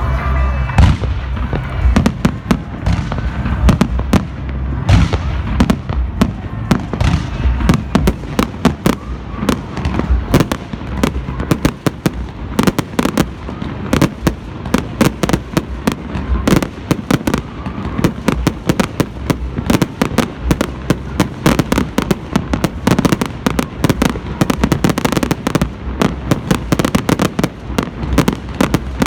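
Many fireworks and firecrackers going off together: a near-continuous barrage of sharp bangs and crackles, several a second, over a steady low rumble.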